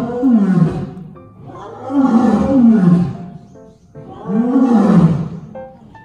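A big cat roaring: three loud calls about two seconds apart, each falling in pitch.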